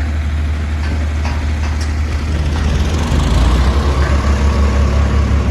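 Tractor's diesel engine running with a heavy low throb, getting louder and more pulsing about three seconds in.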